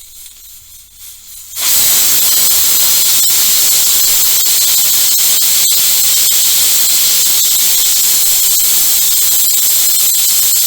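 Pressure cooker letting off steam: a soft hiss builds, then about a second and a half in the weight lifts and the cooker whistles, a loud, steady, hissing shriek of escaping steam. This is the whistle that signals full pressure has been reached.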